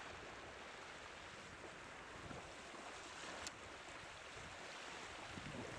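Faint steady wash of surf and wind, with one sharp click about three and a half seconds in.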